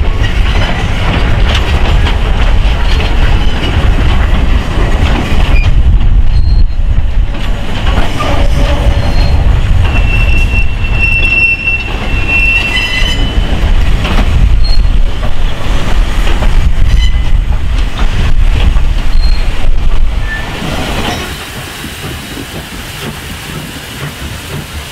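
Steam train headed by a South African Class 19D locomotive rolling past with a heavy rumble and the clank of wheels on the rails. A high wheel squeal sounds about ten to thirteen seconds in. About 21 seconds in the sound drops to a much quieter level.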